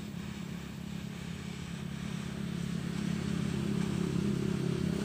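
A steady low engine hum, like a motor idling, growing a little louder from about two seconds in.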